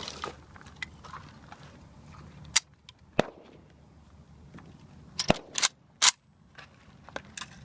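AR-15 rifle fired in single shots: five sharp cracks, two about half a second apart, then after a pause of about two seconds three more in quick succession.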